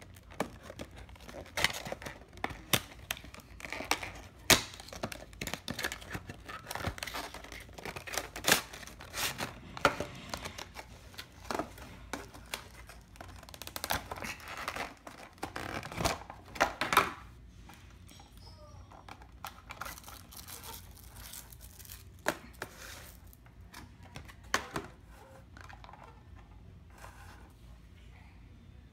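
Clear plastic wrap crinkling and tearing as it is peeled off a plastic display tray, a dense run of crackles and snaps that thins out about two thirds of the way through to a few scattered clicks and taps.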